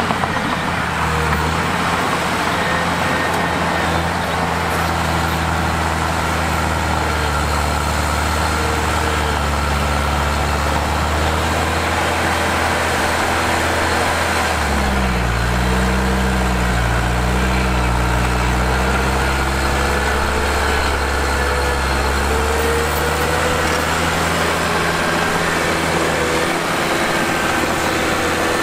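Diesel engines of a bulldozer and dump truck running steadily. About halfway through the engine note drops lower and wavers for several seconds, then settles, as the load on the machines changes.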